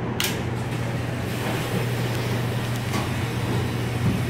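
Commercial stainless-steel dish machine running: a steady motor hum with a hiss like water spraying inside, which comes on with a click just after the start.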